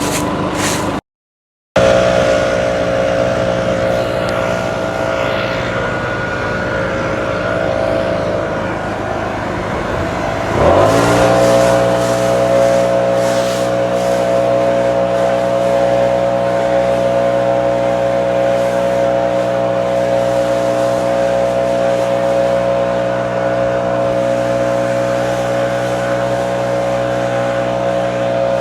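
An engine running steadily, then its speed rises quickly about ten seconds in and holds there, running faster and louder.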